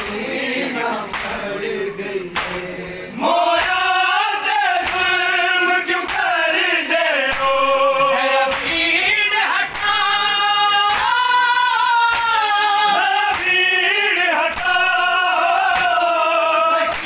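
Men's voices chanting a Shia lament (noha) together. It grows suddenly louder and more tuneful about three seconds in, over rhythmic chest-beating strikes that come roughly every two-thirds of a second.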